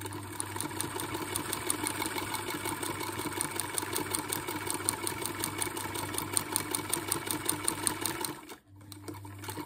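Vintage electric Singer sewing machine running and stitching fast, its needle strokes coming in a quick, even rhythm over the motor's hum. The stitching stops about eight seconds in, and the motor hum returns on its own for about a second.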